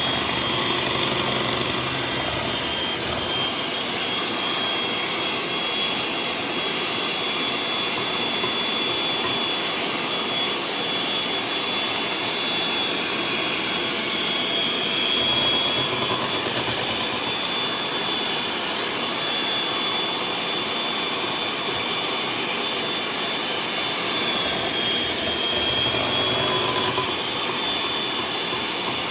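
Electric hand mixer running steadily, its beaters whirring through cake batter, with a steady high-pitched whine from the motor.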